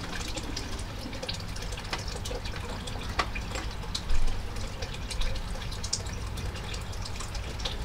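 Light clicks and scrapes of a knife and plates as a cake is cut and a slice is served, the loudest about four seconds in, over a steady low background rumble.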